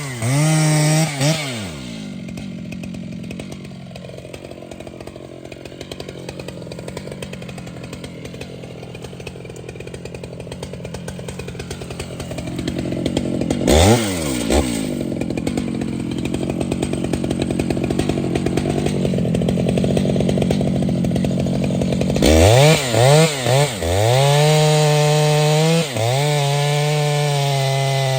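Large two-stroke chainsaw running: it drops from full throttle into a long, lower-pitched stretch of steady cutting, revs briefly about halfway, then is blipped up and down several times and held at high revs with short dips near the end.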